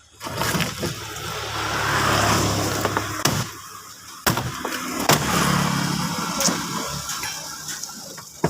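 A motorised tool cutting into a scrap washing machine: a steady motor hum with a noisy grinding rush, and several sharp clicks or knocks.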